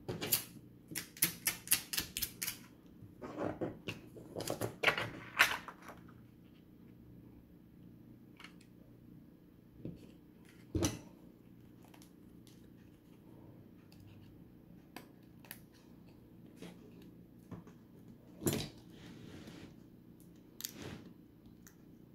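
Hands handling a smartphone and thin plastic screen-protector film on a cutting mat: a quick run of sharp clicks and crackles in the first few seconds, then scattered taps and short crinkles.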